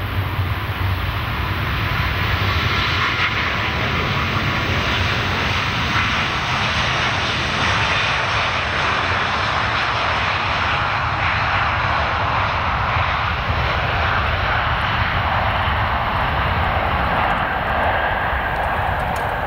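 Airbus A350-900's Rolls-Royce Trent XWB jet engines at takeoff thrust as the airliner accelerates down the runway: a loud, steady jet roar with a low rumble beneath, swelling slightly in the first couple of seconds.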